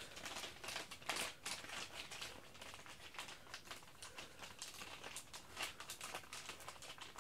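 Plastic soft-bait packaging crinkling and rustling in a run of light, irregular rustles and clicks as soft plastic baits are worked back into their bag.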